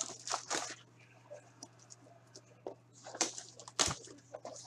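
Scattered rustling and crinkling of a hockey card blaster box's packaging being handled and opened, in short scratchy bursts with a faint steady hum underneath.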